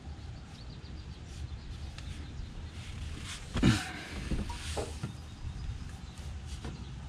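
Oil filter wrench straining against a tight oil filter, with a short creak about halfway through and a fainter one a second later, among a few light clicks.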